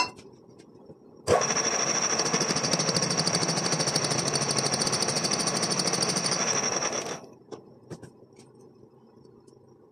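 Reciprocating cutting machine stroking a cutter, made from a ground-down bolt, into a metal gear blank to cut its teeth: a loud, rapid, even hammering that starts about a second in and stops suddenly about seven seconds in.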